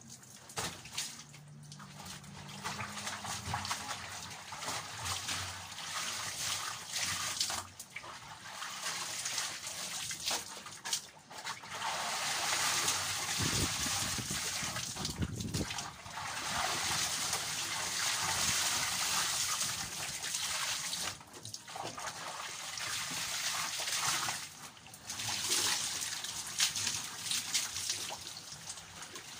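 Water trickling and splashing in a basin as laundry is washed and rinsed by hand, steady with a few brief pauses.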